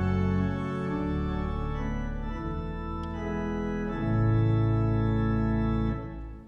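Organ playing a hymn tune in slow, held chords, lifting briefly near the end before the next phrase.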